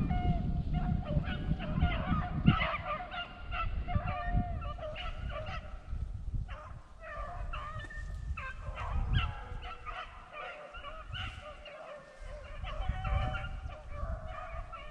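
A pack of beagles baying in full cry, many overlapping short yelping calls: the hounds are running a rabbit's scent trail. Low rustling and wind noise sit underneath.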